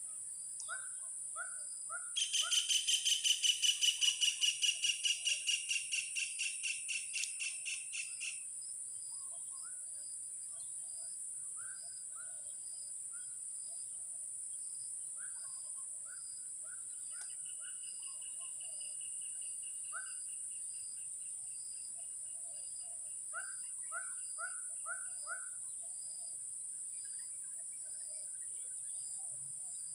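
Steady high-pitched insect drone with scattered short bird chirps. About two seconds in, a loud, rapid run of high pitched calls repeats four or five times a second for about six seconds and fades away. A fainter, similar run of calls comes near the middle.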